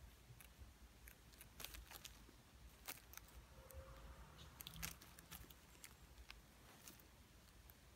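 Faint, scattered crinkling clicks of a thin plastic water bottle as a Ragdoll kitten brushes and presses against it.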